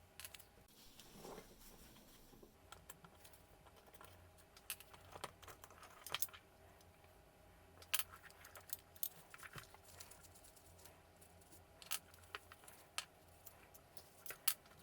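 Faint, irregular clicks and taps of small hard parts and tools being handled, a dozen or so over the span, a few sharper ones standing out.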